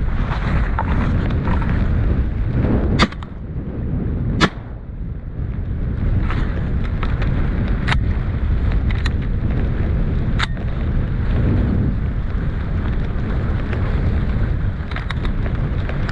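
Two shotgun shots about a second and a half apart, a few seconds in, over heavy wind buffeting the microphone. Several fainter sharp clicks follow later.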